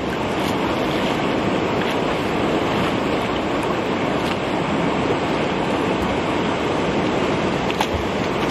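Steady rushing of moving river water close to the microphone, with a few faint clicks.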